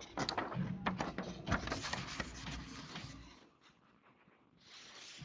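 A sheet of printer paper rustling and crackling as it is handled, dense for about three seconds, then a short softer rustle near the end.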